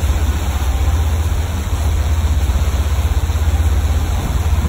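A boat's engine running steadily with a low drone, under a constant hiss of wind and water.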